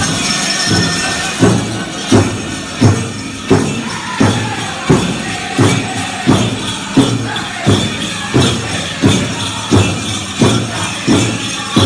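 Powwow drum music for the men's Chicken dance: a big drum beats a steady beat, about three strokes every two seconds, coming in hard about a second and a half in. Bells on the dancers' regalia jingle along with it.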